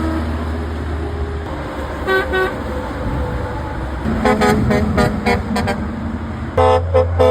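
Truck horns honking over steady road traffic. Two short toots come about two seconds in, then a rapid series of short blasts, then a loud, longer blast near the end.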